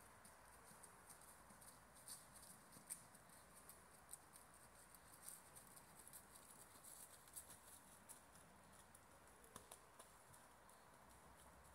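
Near silence: faint outdoor background hiss with scattered soft, irregular ticks.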